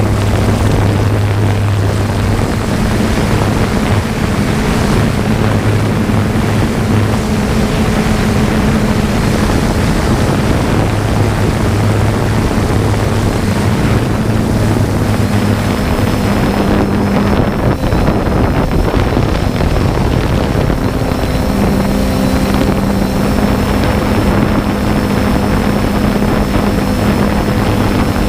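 Small UAV's propellers running with a steady hum that shifts slightly in pitch, under loud wind noise on the microphone. A faint high whine joins in about halfway through.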